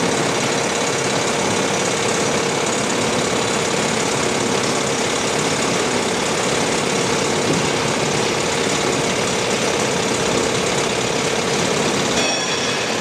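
Water rushing and foaming over stones, a steady roar with a constant hum running under it.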